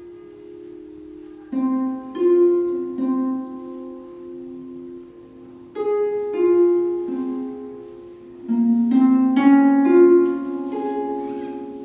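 Concert harp playing a slow, gentle passage: small groups of plucked notes and chords that ring on and fade away between phrases, a new group every second or two.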